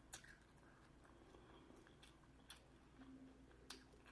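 Near silence, with a few faint soft clicks of someone eating: chewing and mouth sounds between bites.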